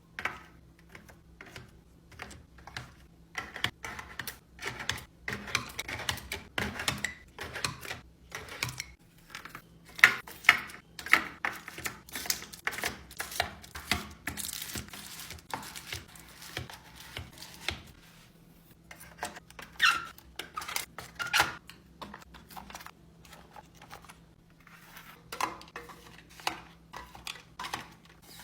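Plastic fridge organisers and food containers being handled and set in place, an irregular string of light taps, clicks and knocks, with a few louder knocks in the middle and toward the end.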